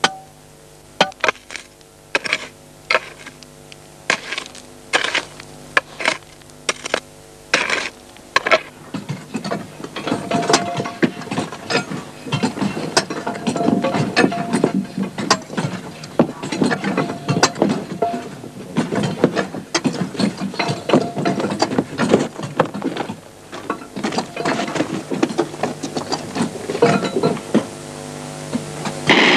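Pickaxes striking rock, at first single blows about once a second, then from about eight seconds in a dense clatter of many blows on stone, over a low steady drone.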